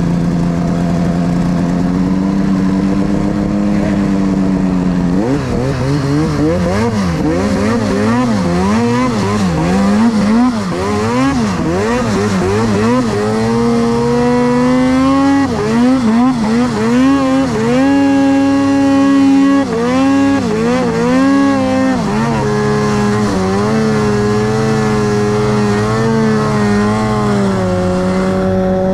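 Two-stroke mountain snowmobile engine under load in deep powder. It holds steady revs for the first few seconds, then the pitch swings rapidly up and down with the throttle, and from about halfway it runs at higher revs with repeated dips and rises.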